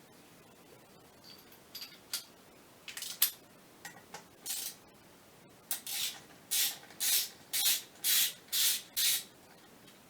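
Hand tool rasping against the metal parts of a Scania electronic clutch actuator: a few scattered clicks and scrapes, then a regular run of about seven short rasping strokes, roughly two a second, about halfway in.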